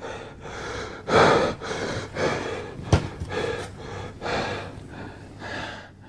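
A man breathing hard with effort while curling a barbell, puffing out about once a second. A single sharp click comes about three seconds in.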